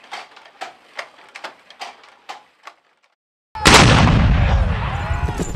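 Wooden handloom clacking about twice a second as it is worked. It stops, and after a short silence a loud explosion sound effect, like artillery fire, bursts in with a long rumble and falling whistles.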